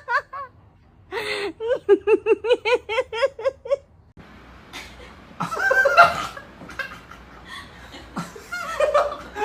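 A person laughing in a rapid run of short, high-pitched bursts, several a second. About four seconds in this gives way to a noisier room sound with scattered laughing and voices.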